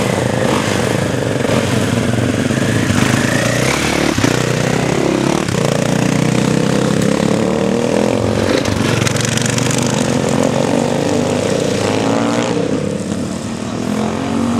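Enduro motorcycle engines running and revving, the pitch rising and falling again and again.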